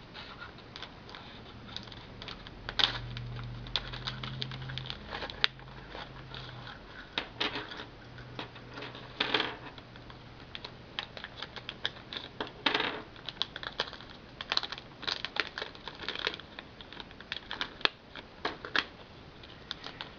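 Packaging of a small screwdriver and prying-tool set being opened and the tools handled: irregular clicks, crinkles and rattles of small plastic and metal pieces, with a few louder clicks among them.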